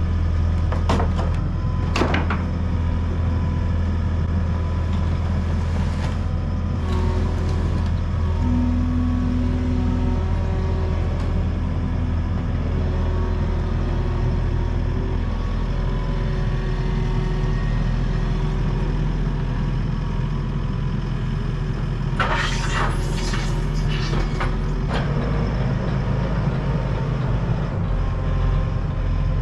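Skid steer engine running steadily, its note shifting to a different pitch about halfway through, with a couple of sharp knocks in the first seconds and a few seconds of clattering near the end.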